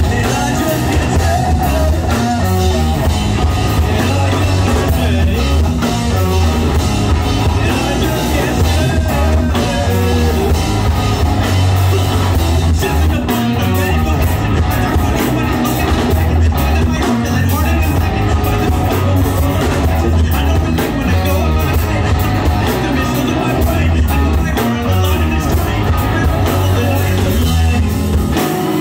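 Live rock band playing a song: electric guitar, electric bass and drum kit, with a vocalist singing into a microphone over them. The bass pulses strongly underneath and the music runs on without a break.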